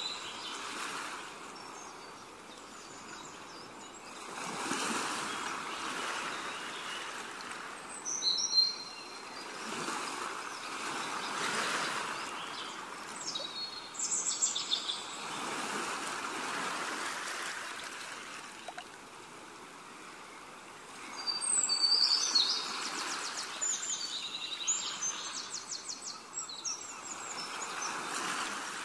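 Small birds chirping in short calls and rapid trills, the longest run near the end, over a rushing hiss that swells and fades every few seconds.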